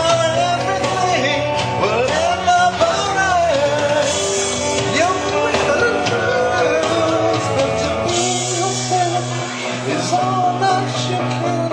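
A man singing into a microphone over amplified rock backing music played through a PA speaker.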